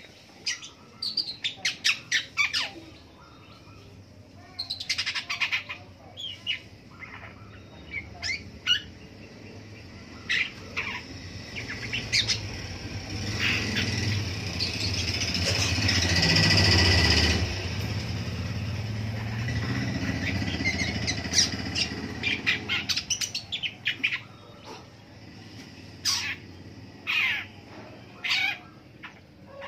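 Long-tailed shrike (pentet) calling in quick runs of short, sharp notes, separated by pauses of a few seconds. In the middle a louder low background noise swells up and fades away over about ten seconds.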